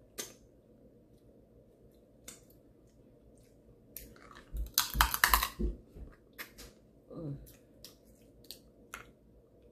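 Close-up eating sounds from snow crab legs: scattered wet clicks and smacks of chewing and picking at the meat. About five seconds in comes a loud run of cracking and crunching as a crab leg is bitten.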